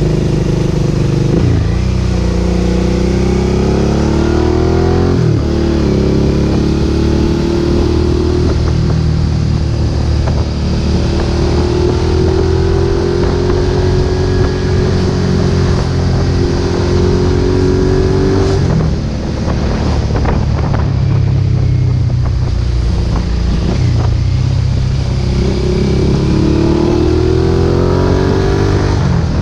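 2008 Suzuki SV650's 645 cc V-twin running through a Roadsitalia aftermarket exhaust with the dB-killer fitted, pulling up through the gears with quick upshifts early on, then holding a steady cruise. About two-thirds of the way in the revs fall away off the throttle, then the engine pulls and rises again near the end.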